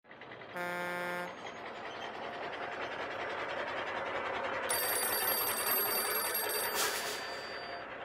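Animation sound effects: a short vehicle-horn honk about half a second in, then the noise of a truck driving in, growing louder. In the second half an old-style telephone bell rings for about two seconds and stops abruptly.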